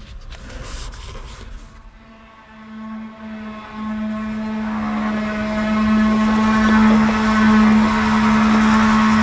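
A steady machine drone, an engine or motor running at constant pitch with hiss, that comes in about two seconds in and grows louder over the next few seconds. A few faint clicks come before it.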